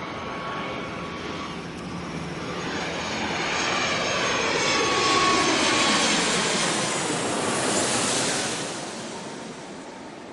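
Airplane on its landing approach passing low overhead. The engine noise and faint whining tones build to a peak about five to eight seconds in, then fade away.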